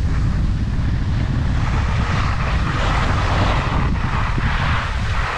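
Wind buffeting the microphone of a skier's camera during a descent, a steady low rumble, with the hiss of skis sliding and scraping over the snow growing from about two seconds in.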